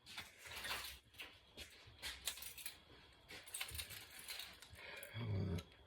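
A bunch of keys jangling as it is picked up and handled: a scattered run of light metallic jingles and clicks.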